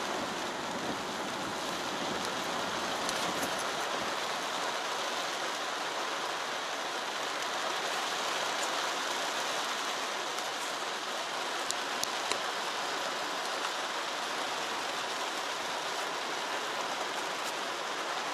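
Heavy rain pattering steadily on the car's roof and windshield, heard from inside the car, with a few sharp ticks scattered through it.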